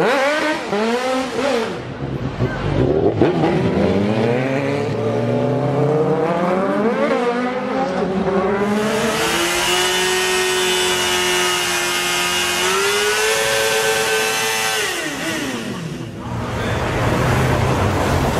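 Sport motorcycle engines revving hard, their pitch sweeping up and down several times. About nine seconds in, one engine is held at high revs for some six seconds under a hissing haze, a rear-tyre burnout, then the revs drop away. A lower engine sound follows near the end.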